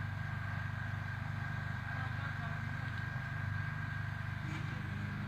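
An engine running steadily, with a low even hum and a faint constant high whine above it.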